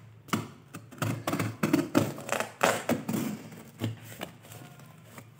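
Packing tape on a cardboard box being cut and torn open with a knife: a quick run of sharp scraping and ripping sounds that stops about a second before the end.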